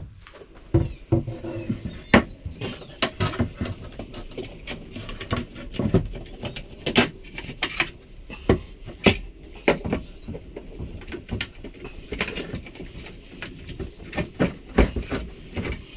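Irregular wooden knocks and taps as a timber upstand is handled and pushed into place on a stone benchtop against the wall.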